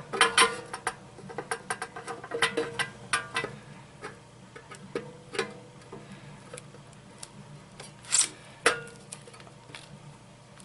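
Irregular metallic clicks and clinks from a rock tumbler's roller shaft and new bearings being handled and fitted, some ringing briefly. The loudest come just after the start and about eight seconds in.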